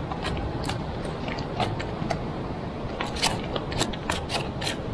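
Sharp clicks and taps from a caught salema being handled on granite rocks, thickest between about three and five seconds in, over a steady rush of wind and surf.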